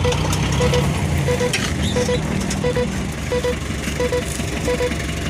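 Truck sound effect: a low engine rumble with a short double beep repeating about every 0.7 s.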